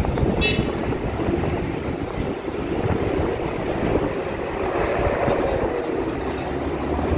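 Wind buffeting the microphone over street traffic, with a city bus passing and its engine drone rising and falling about two-thirds of the way through.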